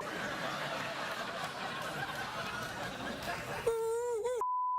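Studio audience laughing. Near the end there is a brief voiced sound, then a steady high-pitched censor bleep cuts in.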